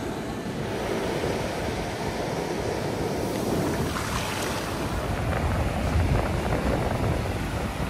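Ocean surf breaking and washing over wet sand, with wind buffeting the microphone. A hiss of foamy water spreads across the sand about halfway through.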